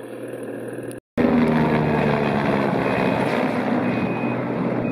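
A heavy engine running steadily, coming in loud after a short break about a second in. Faint evenly spaced reversing beeps begin near the end.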